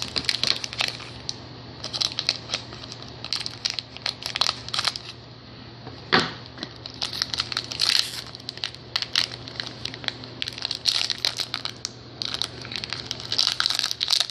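Foil wrapper of a Donruss Racing trading card pack crinkling and tearing as it is worked open by hand: a long run of quick crackles and rustles, with one sharper crack about six seconds in.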